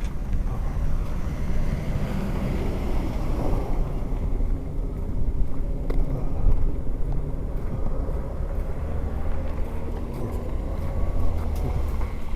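Car traffic on a city street, with a steady low rumble and a car passing a couple of seconds in.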